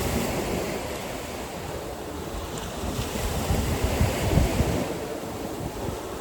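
Surf washing onto the beach, with wind buffeting the microphone in gusts that rumble strongest about four to five seconds in.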